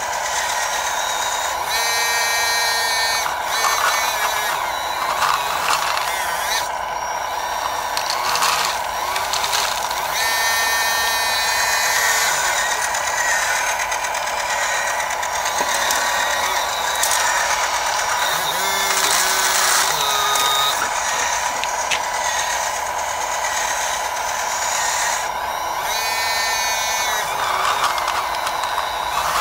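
Hydraulic pump of a radio-controlled Bruder CAT 325D model excavator running steadily, with a whine rising over it in stretches as the valves work the boom, stick and bucket.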